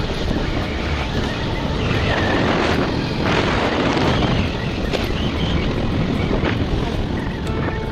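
Wind buffeting the microphone of a moving motorbike, with the engine and tyre noise on a dirt road underneath; a loud, steady rush that swells and eases slightly.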